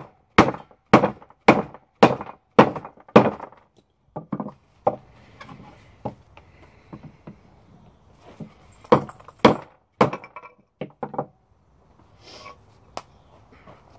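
Wooden baton striking the spine of a ROOT 2.0 bushcraft knife, driving the blade crosswise through a branch: about six sharp wooden knocks, roughly two a second. Then lighter knocks, and a few more hard blows about nine to eleven seconds in.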